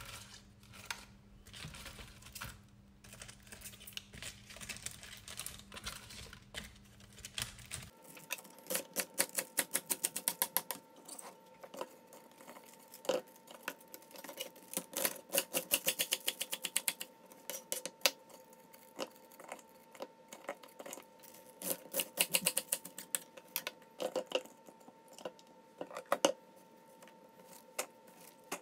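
Bok choy leaves rustling as they are handled in a plastic colander. About eight seconds in, a chef's knife starts chopping bok choy on a plastic cutting board: quick runs of sharp knocks with short pauses between them.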